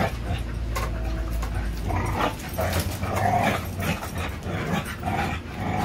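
An American Bully XL and an American pit bull terrier growling and grumbling in play as they tug on a spring-pole rope toy. The vocal sounds come in short repeated bouts, starting about two seconds in.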